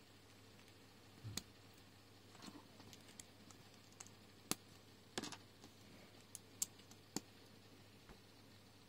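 Small plastic LEGO pieces clicking and tapping as they are handled and pressed together, about eight scattered sharp clicks over faint room noise.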